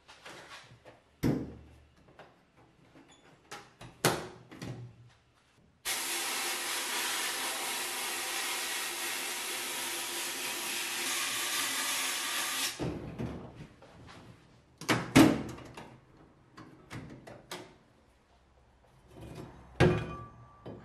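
Sandblasting cabinet at work: about six seconds in, the blast gun starts a loud, steady hiss of compressed air and abrasive stripping rust off a steering knuckle, cutting off suddenly about seven seconds later. Before and after it, sharp clunks and knocks of metal parts and the cabinet door being handled, the loudest a couple of seconds after the blasting stops.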